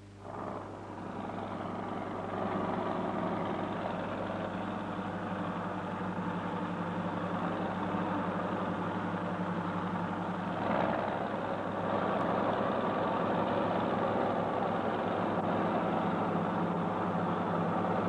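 Crawler bulldozer's engine running steadily under work, growing louder about two seconds in and again about eleven seconds in.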